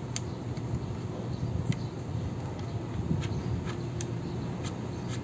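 Scattered light clicks and taps of metal parts being handled on a pressure washer's brass plunger-pump head, about six in all, over a steady low hum.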